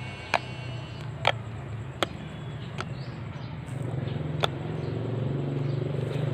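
Slime being squeezed and worked by hand, giving sharp popping clicks from trapped air about once a second, five in all, spaced unevenly.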